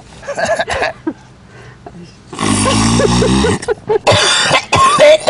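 Loud hacking coughs in two long bursts, the first falling in pitch, from someone who has just snorted ice cream and syrup up the nose through a straw.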